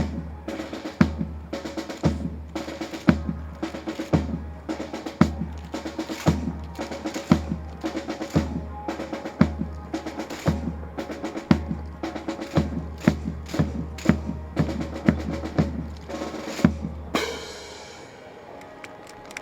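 Percussion music on drums: a deep bass drum beat about once a second under quick snare hits and rolls. It ends with a crash about three-quarters of the way through, and the drumming stops.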